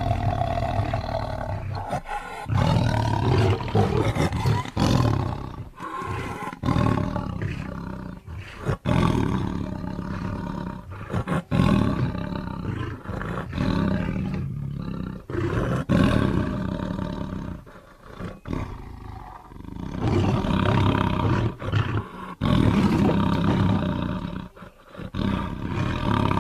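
A string of tiger sound effects: deep roars and growls follow one another as separate clips, each cut off abruptly with short gaps between them.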